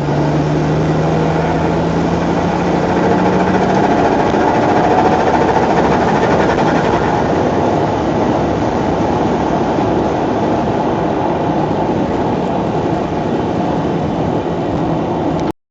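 Toyota 1JZ-GTE turbocharged straight-six with an aftermarket TRD turbo running steadily under load, its pitch rising slightly over the first few seconds, with a rapid fluttering chatter from the intake: true compressor surge at part throttle, which the owner puts down to the cams being unable to take the airflow. The sound cuts off suddenly near the end.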